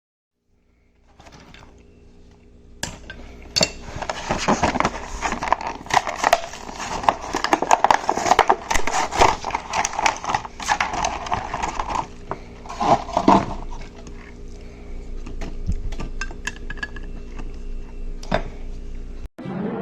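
Small hard objects, likely metal, clinking and rattling against each other in quick, irregular succession, densest in the first half, with a faint steady hum underneath.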